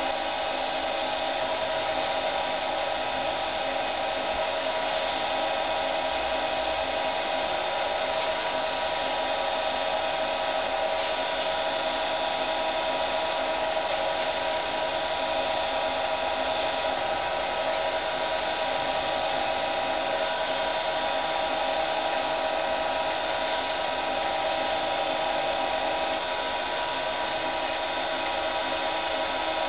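Small benchtop wood lathe running at a steady speed with a pen blank turning on its mandrel, a constant motor hum and whine that never changes pitch.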